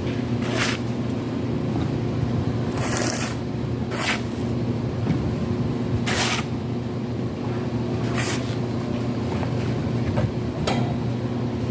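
A motor or engine running steadily with a low hum, with short hissing swishes every second or two, typical of plastering work on a building site.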